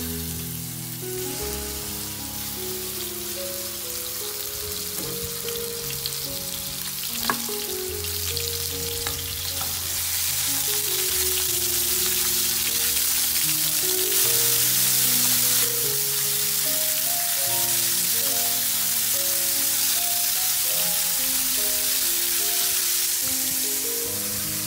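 Sliced pork sizzling as it fries in a nonstick frying pan. The sizzle grows louder about ten seconds in, with one sharp tap about seven seconds in, and light background music underneath.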